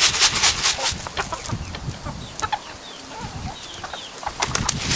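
Flock of chickens clucking, with bursts of rustling near the start and again near the end.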